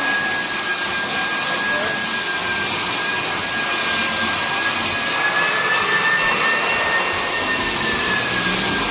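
Hardwood floor edger sander running steadily, cutting through old wax build-up along the floor edges. A constant rush of motor and sanding noise carries a steady whine that rises slightly about six seconds in and then settles back.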